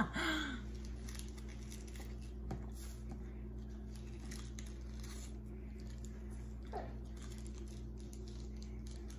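Quiet room with a steady low hum, and faint, scattered rustles and small taps of hands handling small items at a table.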